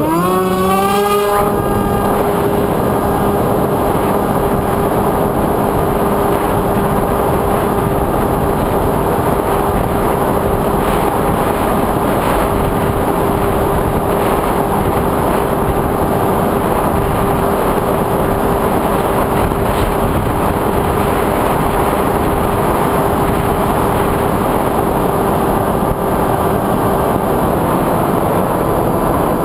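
FPV racing quadcopter's electric motors and propellers spinning up with a quick rising whine, then running at a steady high pitch under a heavy wash of propeller and wind noise.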